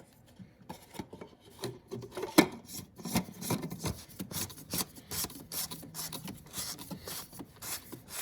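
Cartridge oil filter and its plastic housing cap being fitted and turned by hand: quick, irregular rasping scrapes and clicks of plastic on plastic, with one sharper knock about two and a half seconds in.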